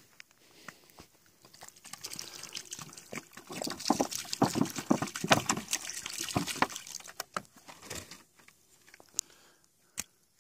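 Water pouring from a plastic gallon jug onto sand, splashing. It starts about a second and a half in, is loudest in the middle and stops about eight seconds in. A couple of short clicks follow near the end.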